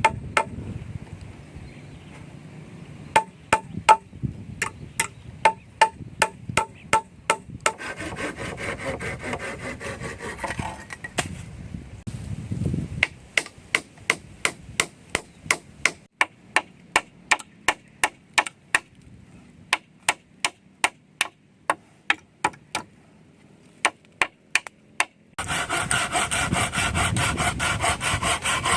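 Hammer driving nails into wood in steady runs of sharp blows, about two a second, the first strikes ringing. Twice the hammering gives way to a hand saw rasping through wood, the second time near the end.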